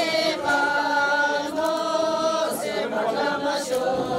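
A group of voices singing a Sherpa shyabru song together, in long held notes with short breaks between phrases.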